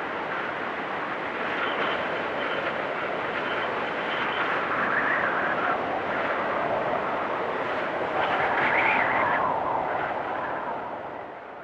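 Strong winter wind blowing in gusts, a steady rush with a whistling edge that rises and falls. Two stronger gusts swell about halfway through and again a few seconds later, then the sound fades away near the end.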